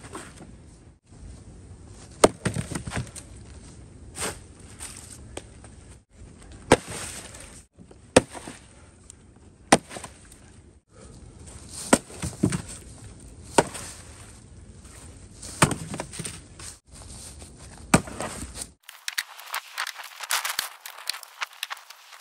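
Fiskars X27 splitting axe striking log rounds lying on a woodpile, about ten sharp chopping blows roughly every two seconds as the rounds are split in place. Near the end the blows stop and a dense crackling rustle takes over.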